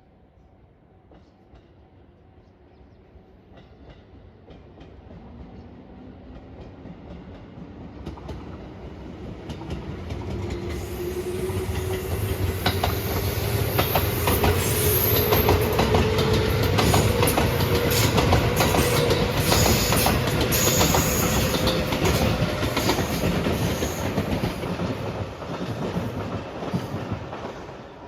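A train approaching and passing close by: it builds over about ten seconds to a loud, rapid clatter of wheels over rail joints, with a tone slowly rising in pitch underneath, and starts to fade near the end.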